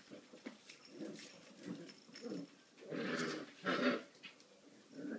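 Border collie puppies yapping in play: a string of short calls, the two loudest about three seconds in.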